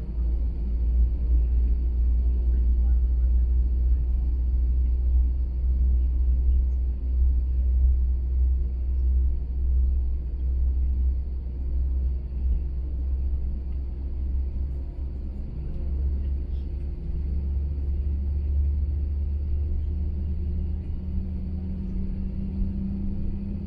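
Airbus A321 cabin noise while taxiing: a steady low rumble with a constant hum above it. Near the end a low tone steps up in pitch.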